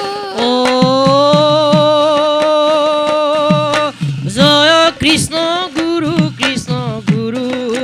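Devotional kirtan: a singer holds one long note for about three seconds, then moves into a wavering, ornamented melody, over hand drums struck in a steady pattern, their low strokes dropping in pitch after each hit.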